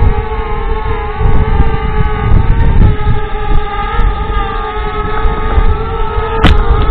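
DJI Spark quadcopter's motors and propellers running with a steady whine of several close pitches that waver slightly, over wind rumble on the microphone. A sharp click near the end.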